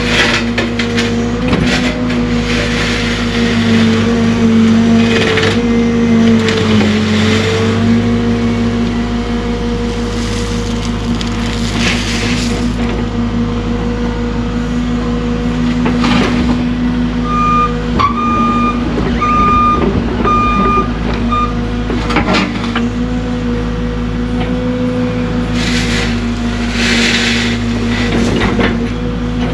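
CAT excavator's diesel engine running steadily while the machine works, its pitch sagging briefly under load about a quarter of the way in, with several short bursts of noise along the way. About halfway through come about five short, evenly spaced beeps.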